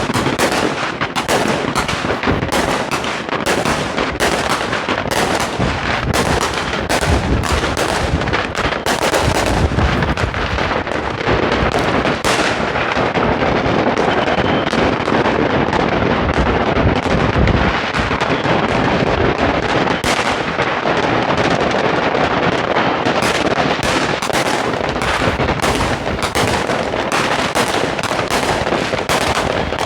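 Fireworks and firecrackers going off all around at once: a loud, dense, unbroken barrage of bangs and crackling.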